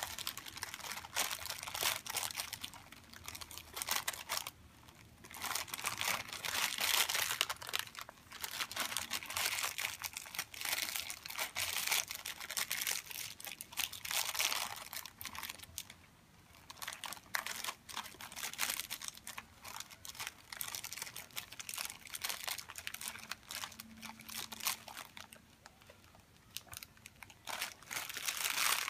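Crinkling of a graham cracker packet's wrapper being handled by small hands, in spurts of crackling with short pauses between.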